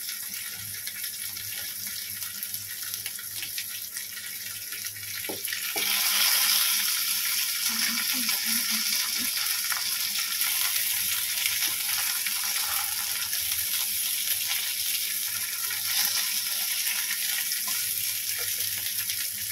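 Stuffed green chilies frying in hot oil in a wok, a steady sizzle that gets louder about six seconds in as another pepper goes into the pan.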